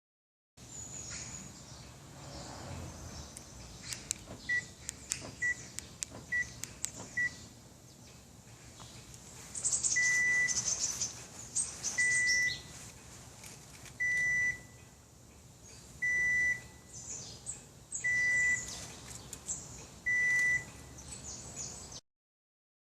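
Electronic beeping, four short beeps a little under a second apart, then six longer beeps two seconds apart, with scattered clicks in between.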